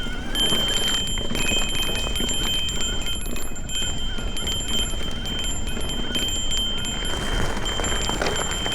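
Electric mountain bike ridden over a dirt trail: continuous small rattling and clicking over a low rumble, with steady high metallic ringing tones.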